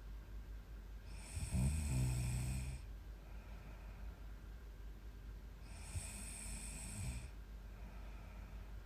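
A young woman snoring in her sleep: a loud, fluttering snore about a second and a half in, then quieter breathing, and a second, softer snoring breath about six seconds in.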